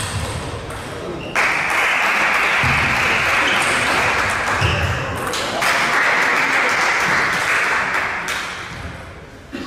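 Table tennis rally: sharp clicks of the celluloid ball on the bats and the table, with a few low thuds. A loud, steady rushing noise starts about a second in, drops out briefly midway, and fades near the end.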